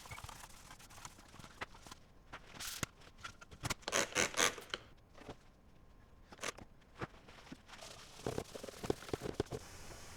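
Irregular clicks, taps and short scrapes of computer parts being handled and cleaned, with a louder flurry about four seconds in and another near the end.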